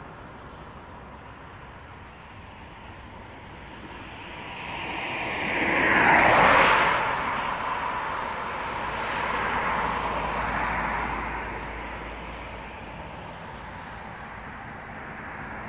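Cars passing on a two-lane road: tyre and engine noise swells and fades, loudest as one car goes by about six seconds in, with a second, quieter pass around ten seconds in.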